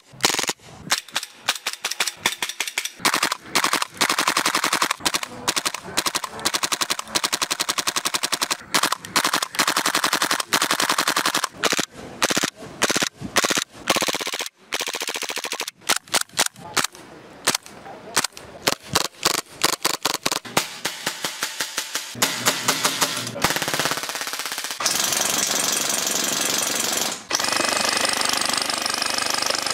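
Airsoft replica guns firing in turn: gas blowback pistols cracking out single shots, then long full-auto bursts of rapid shots. Near the end a Classic Army M132 Microgun replica with its spinning barrels fires in one unbroken stream.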